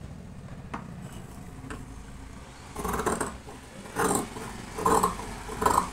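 Large tailor's scissors cutting through folded cloth along a marked line: faint blade clicks at first, then four louder snips about a second apart in the second half.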